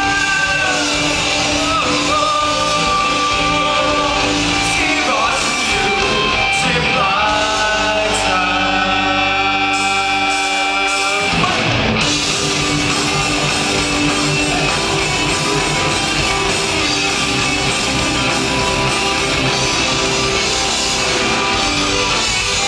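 Live rock band playing amplified electric guitars, bass guitar and drums, with singing. Long sustained notes bend in pitch in the first half, and the band moves into a new section about halfway through.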